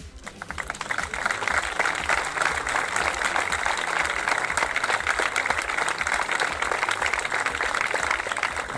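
Crowd applauding, swelling over about the first second and then holding steady.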